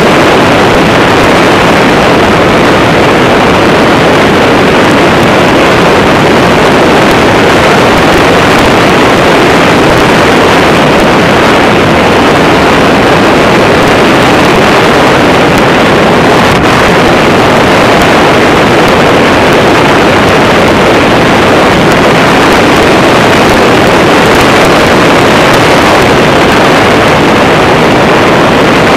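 Microlight trike's engine running steadily in flight, mixed with wind rushing over the microphone; very loud and unchanging throughout.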